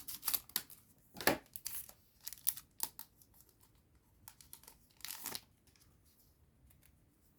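A Digimon Card Game booster pack's foil wrapper being torn open and crinkled, a run of short crackles and rips that stops about five and a half seconds in.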